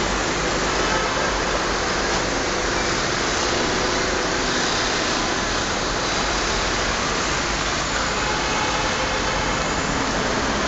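Steady, even street traffic noise from passing vehicles, with a few faint steady tones running through it.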